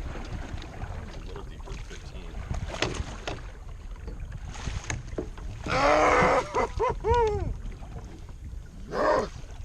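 Wind buffeting the microphone and water noise on an open fishing boat, a steady low rumble. A loud rush of noise about six seconds in is followed by a few short calls whose pitch rises and falls, and another near the end.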